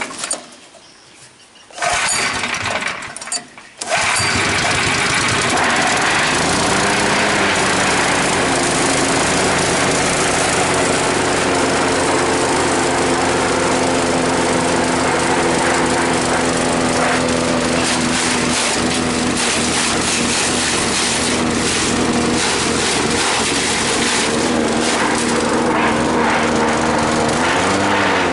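Small petrol engine of a patchouli-leaf chopping machine being started: two short tries that die away in the first few seconds, then it catches about four seconds in and runs steadily, speeding up briefly around six seconds and again near the end.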